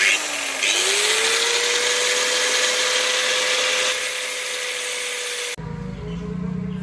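Small handheld electric power tool: its motor whines up to speed in the first second, then runs steadily with a loud hiss, cutting off abruptly about five and a half seconds in.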